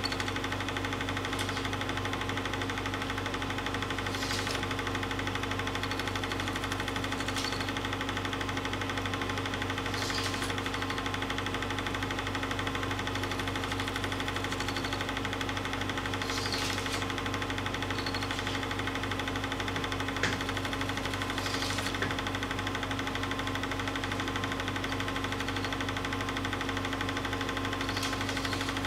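Film projector running: a steady mechanical whir and hum with a rapid clatter, unchanged throughout, with faint ticks every few seconds.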